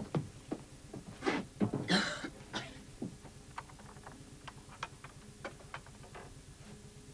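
Wooden door and its iron latch being handled: a sharp click at the start, a few knocks and a short scraping rush about two seconds in, then only faint scattered ticks.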